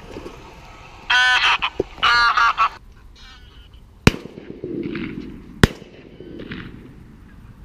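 Two loud, harsh bird calls about a second in, then two shotgun shots about a second and a half apart, the first about four seconds in, each followed by a low rumble.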